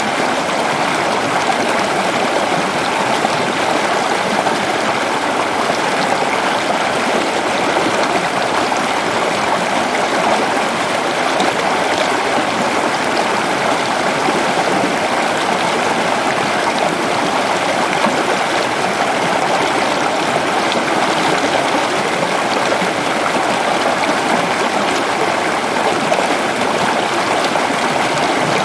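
Steady rush of a forest waterfall, loud and unbroken.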